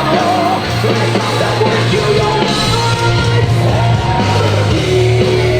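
Loud rock music with a singing, shouting vocal over a heavy bass line.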